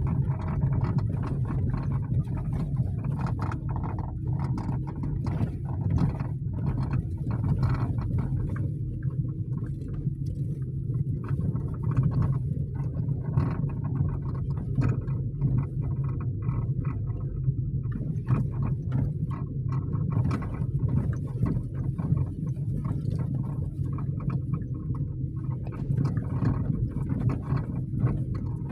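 Inside the cabin of a 2023 Lada Vesta NG driving over an unpaved road: a steady low drone with many irregular knocks as the car goes over bumps, which the owner presents as knocking from the electric power steering.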